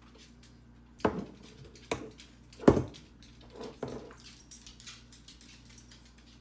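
Kitchen handling noise at a gas stove: a few separate knocks and clatters of a bottle and a frying pan being handled, the sharpest knock a little under three seconds in.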